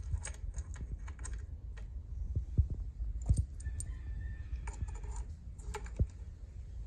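Scattered small metal clicks and taps as a scope ring is set onto a rifle's Picatinny rail and moved along it, over a steady low hum.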